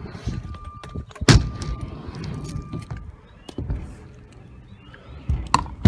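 Stunt scooter wheels rolling on a wooden quarter pipe ramp, with one loud sharp clack about a second in and two more knocks near the end as the scooter strikes the ramp.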